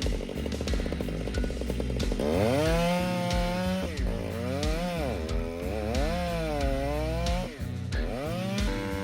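Two-stroke chainsaw running, its engine pitch rising and falling repeatedly as it revs and bogs down in the cuts, over background music.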